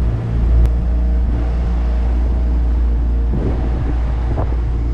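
Small fishing boat's outboard motor running steadily under way, a low, even drone. There is a brief click about half a second in.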